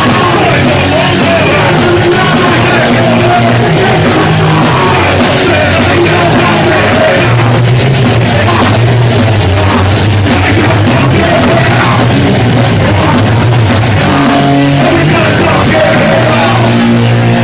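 Punk rock band playing loud and fast live, with a singer shouting into the microphone over the band.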